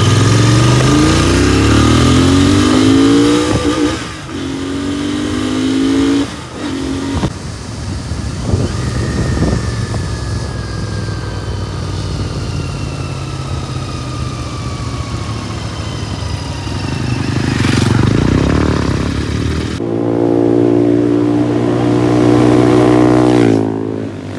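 Motorcycle engine run flat out on a top-speed run. The revs climb and drop at each upshift over the first several seconds, then hold at speed under rushing wind. A steady, strong engine note comes in near the end and then falls away.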